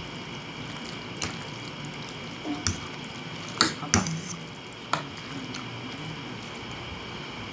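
Metal fork clinking and scraping against a ceramic plate while twirling spaghetti in sauce: four sharp clinks, two of them close together near the middle, with softer stirring sounds between.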